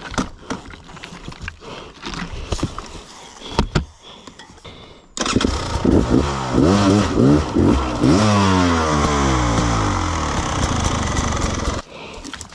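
A two-stroke enduro motorcycle engine, a Beta 300 RR, starts suddenly about five seconds in and is revved up and down again and again, then cuts off near the end. Before it starts there are scattered knocks and scuffs on rocky ground.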